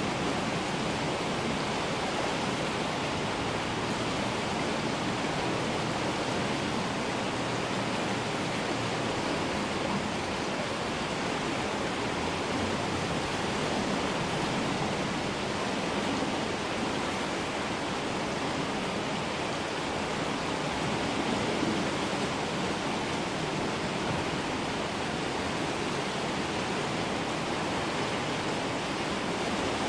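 Floodwater rushing down a creek, a steady, even roar of churning water.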